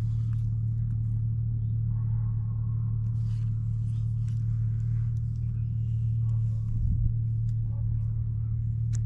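A steady low hum, as of a small motor running at constant speed, with faint ticks and rustles above it.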